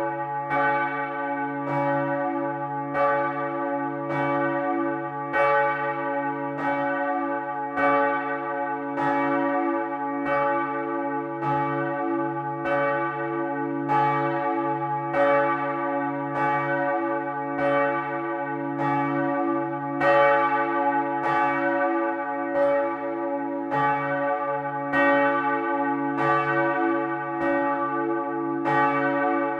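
Swinging church bells of the Freudenstadt Stadtkirche ringing together, several bells from its seven-bell peal. Strokes come more than once a second in an overlapping, uneven rhythm over a continuous deep hum.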